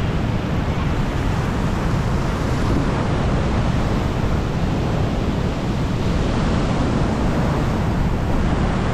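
Steady rush of a high, fast river churning through whitewater below a dam spillway.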